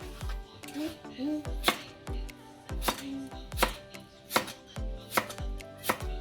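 Kitchen knife chopping vegetables on a cutting board, sharp strikes about every three-quarters of a second, over background music with a steady low beat.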